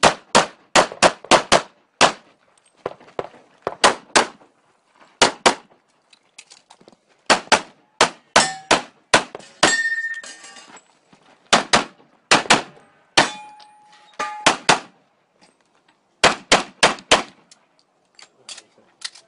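STI 2011 pistol fired in fast strings of shots, with short pauses between strings. A few shots are followed by a ringing metallic tone.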